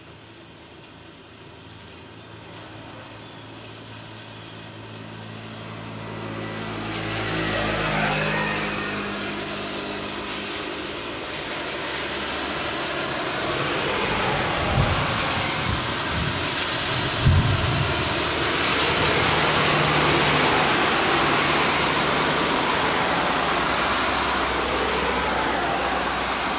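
A motor vehicle passing close by: a low engine hum that builds into a loud, steady rushing noise lasting over ten seconds, with two thumps in the middle.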